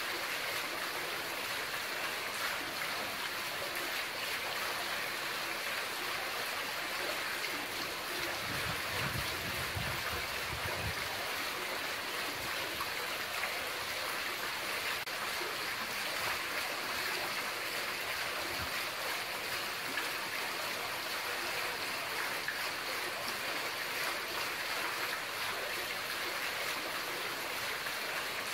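Water running and splashing steadily from the spouts of a mosque's şadırvan (ablution fountain). A brief low rumble comes in about nine seconds in.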